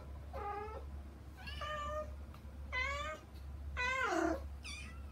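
A kitten meowing over and over, short high-pitched calls about once a second, five in a row, calling to its mother cat on the other side of the door. A steady low hum lies underneath.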